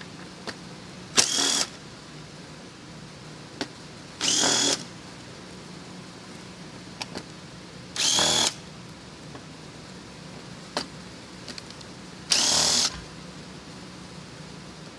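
Cordless power screwdriver backing out the screws of a TV's T-Con board metal cover: four short whirs of about half a second each, spaced a few seconds apart, with faint clicks of handling in between.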